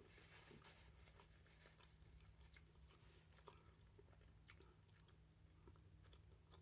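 Near silence: faint chewing of food, with scattered soft mouth clicks over a low steady hum.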